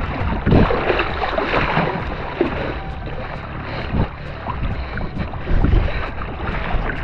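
Wind on the microphone over sloshing shallow sea water, with a few sharper hits along the way.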